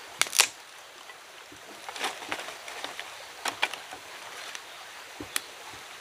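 Dry banana leaves and dry sticks crackling and snapping as they are handled and piled on the ground: a few sharp crackles, the loudest in the first half-second, with more about two, three and a half and five seconds in.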